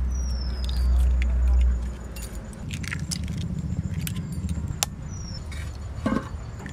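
Eggs being tapped and cracked on the edge of a black bowl and dropped in one after another: a series of sharp clicks and knocks. A low rumble comes from the microphone in the first two seconds.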